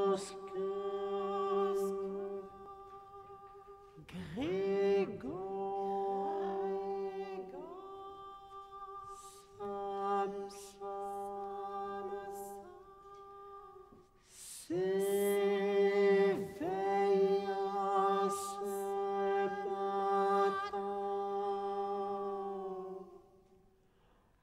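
Countertenor singing the opening words 'Lorsque Gregor Samsa s'éveilla ce matin' in long held notes, swooping up into some of them, over a lower held tone. The singing pauses briefly a few times and dies away near the end.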